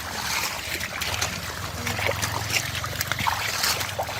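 Shallow muddy water splashing and trickling in short, irregular strokes, as when hands work through river shallows, over a low steady hum.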